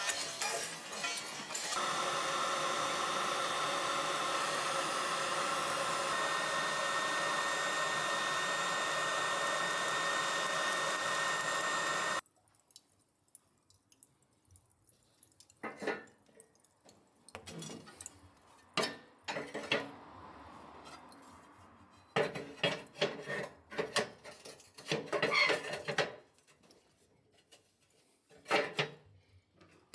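An electric hot-air charcoal lighter blowing steadily for about ten seconds, with a steady motor whine, then cutting off abruptly. Scattered knocks and clinks of hard objects being handled follow.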